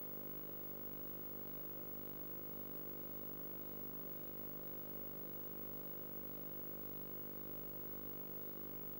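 Steady electrical hum: a set of evenly spaced steady tones over a faint hiss, unchanging.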